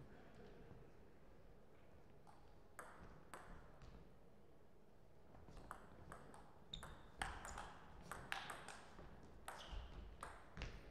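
Table tennis ball clicking off the bats and the table: a few scattered bounces about three seconds in, then a quick run of clicks through a rally from about halfway through.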